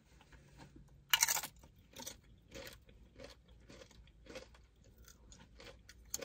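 Close-miked eating: a loud crunchy bite a little over a second in, then steady chewing with a chew about every half second.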